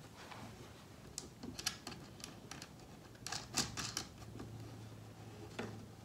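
Scattered light clicks and taps as hands fit a small wooden block and hardware against a sawmill's metal blade guard, a quick cluster of them about halfway through.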